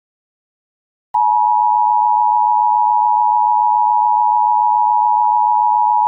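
Emergency Alert System attention signal: a loud, steady two-note tone that starts abruptly about a second in, after silence.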